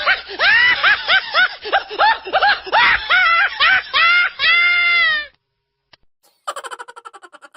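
High-pitched laughing sound effect: a quick string of 'ha' syllables, each rising and falling in pitch, ending in one long drawn-out note about five seconds in. After a brief gap, a different rapid, chattering laugh starts near the end.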